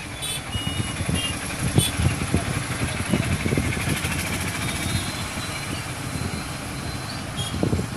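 A motor vehicle's engine running steadily, with an irregular low rumble.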